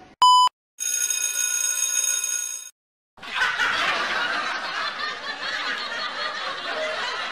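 A run of separate editing sound effects: a short, loud high-pitched beep, then a steady electronic tone for about two seconds, then, after a moment's silence, a few seconds of crowd-like laughter.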